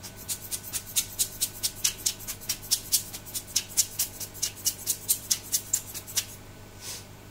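Hand-squeezed rubber air blower puffing air over a freshly heated circuit board to cool it: a quick, even run of short puffs, about four to five a second, that stops about six seconds in.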